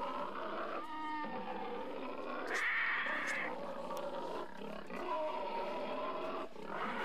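Monster-like growling and roaring voices, sustained and overlapping, with a brief rattling growl about a second in.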